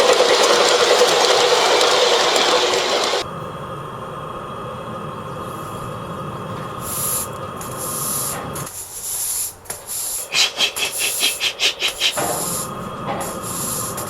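G-scale garden-railway model steam locomotive, fitted with an electronic sound unit, running past. There is a loud steady hiss for about the first three seconds, which cuts off suddenly. Then come quieter bursts of steam hiss and a quick run of rhythmic chuffs near the end.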